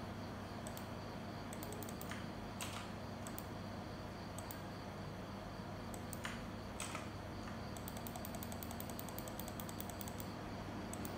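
Computer keyboard keys clicking: scattered keystrokes, then a quick run of typing in the last few seconds, over a steady low electrical hum.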